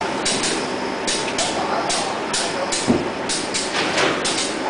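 Two-colour corrugated board printing machine running: a steady mechanical hum with a thin steady whine, overlaid by a rhythmic run of short clattering hisses, about two or three a second, often in quick pairs. One louder thump comes about three seconds in.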